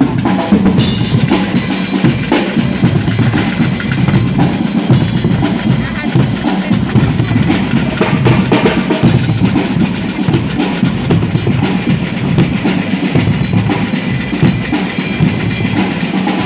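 Guggenmusik band playing loudly: brass horns over bass drums and a snare drum, with drum strikes in a steady beat.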